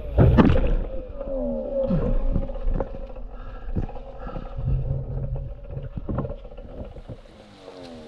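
A snowmobile skimming across water crashes. There is a loud splash and impact right at the start, then muffled splashing and scattered knocks in the water that die down toward the end.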